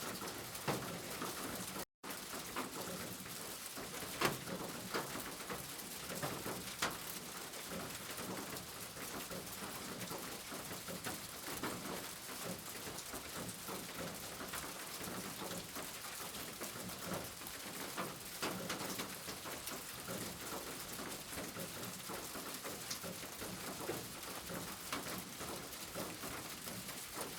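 Steady rain falling on a surface, with scattered louder drips. The sound cuts out for an instant about two seconds in.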